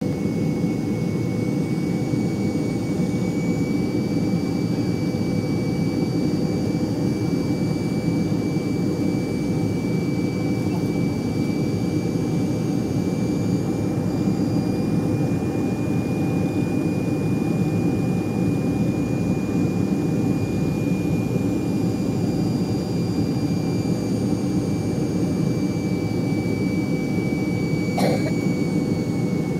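Airliner cabin noise in flight on approach to landing: a steady engine roar with a steady high whine over it. A single brief click comes near the end.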